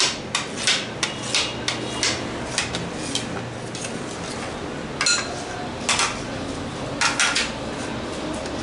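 Knife cutting set jelly in a tray, the blade clicking and tapping against the tray: a quick run of taps for the first few seconds, then a few louder clacks later on.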